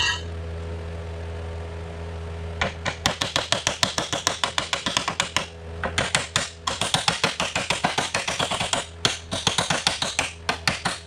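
Rapid hammer blows on the steel frame rail of a Chevy S10, pounding up the cut edges where the bump-stop bracket was removed so a C-notch can sit flush. They start about two and a half seconds in and come in quick runs of several strikes a second, with short pauses about halfway and again near the end.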